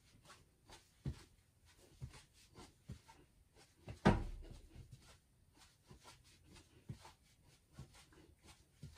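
Soft thuds and taps of feet landing on a hard floor during marching in place with high knee raises, irregularly about one or two a second, with one louder knock about four seconds in.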